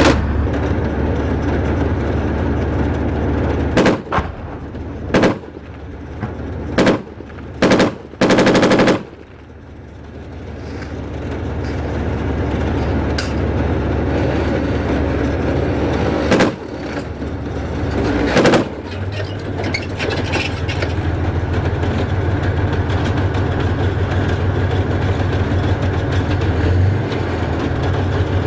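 Gunshots, about seven single shots spread over the first twenty seconds, with a short burst of automatic fire about eight seconds in. Under them runs the steady low rumble of a tank's engine and tracks, which grows louder and carries on after the shooting stops.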